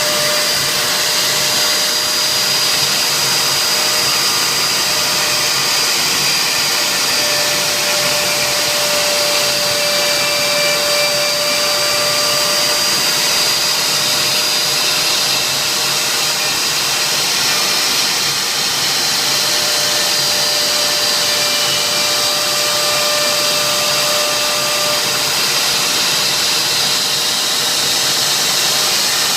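CNC router spindle running steadily while engraving, a constant loud hiss with a high whine on top.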